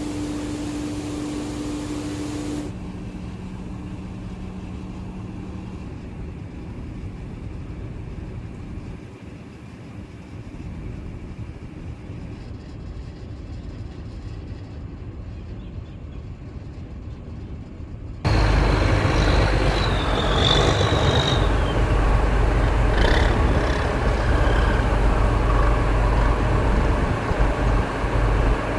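Steady engine and machinery noise across several cuts: a humming engine tone at first, quieter for a stretch, then much louder from about 18 seconds in, with a brief high squeal soon after.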